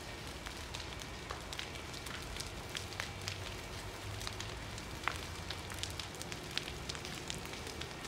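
A large building fire burning, with frequent sharp crackles and pops over a steady rushing noise.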